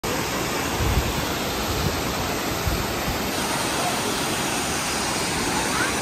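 Steady rush of the Düden waterfall and the rapids below it, water pouring and tumbling over rocks. A few low thuds sound in the first three seconds.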